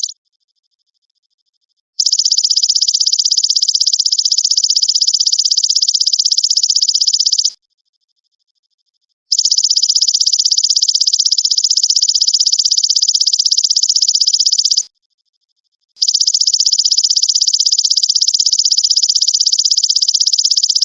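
Belalang emas (golden grasshopper) trilling: long, high, rapidly pulsed buzzing trills, each lasting about five to six seconds with short silent gaps between them, three times over.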